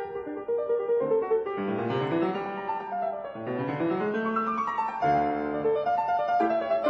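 Solo piano music playing, with two rising runs of notes.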